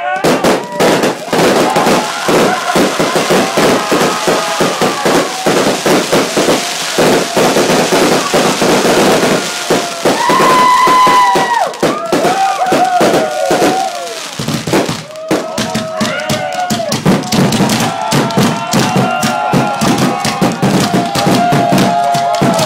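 Aerial fireworks display close overhead: rapid bangs and dense crackling from the bursting shells. Onlookers' voices call out at times over the explosions.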